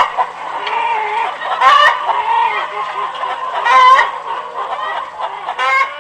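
Chicken (hen) clucking without a break, with a louder drawn-out call about every two seconds, three times in all.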